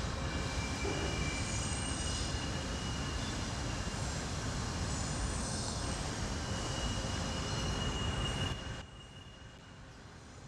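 A train rolling past, a steady rumble with wheels squealing in several thin high tones. It cuts off abruptly about eight and a half seconds in, leaving quiet room tone.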